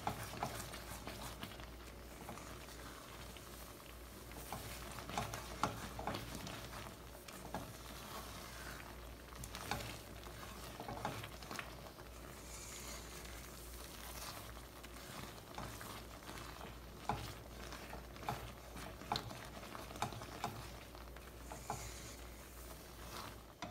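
Silicone spatula stirring and scraping a thick cashew-paste mixture with ghee around a nonstick pan on the heat, with frequent short scrapes and soft knocks over a steady sizzle as the mixture bubbles.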